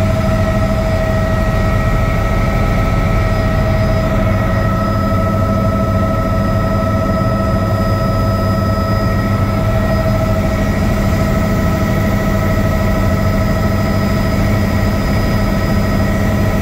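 Helicopter in flight, heard from inside the cabin: a loud, steady deep rumble under a constant high whine.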